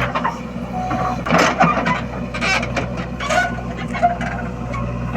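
Heavy-machinery diesel engine running steadily at low speed, with several short, sharp higher-pitched sounds over it at irregular intervals.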